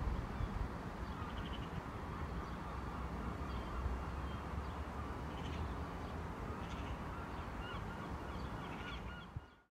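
Low, steady rumble of a distant Class 158 diesel multiple unit on the station approach, with faint bird calls over it. The sound drops away abruptly near the end.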